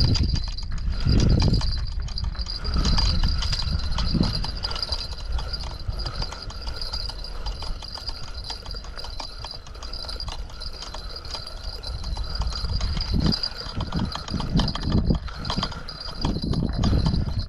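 Fishing reel being cranked while playing a hooked carp, a rapid irregular clicking, with a steady high whine throughout and heavy low rumbles at the start and near the end.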